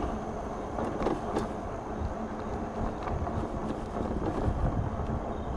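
Wind rushing over the microphone and the fat tyres of a Juiced Scrambler electric bike rolling on asphalt at speed: a steady low rumble with a few light ticks.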